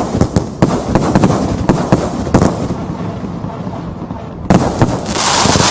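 Tai Pan Rio Grande 80-shot firework cake firing: a rapid string of sharp bangs and pops, thinning out for a moment, then a loud bang about four and a half seconds in followed by a dense hissing spray.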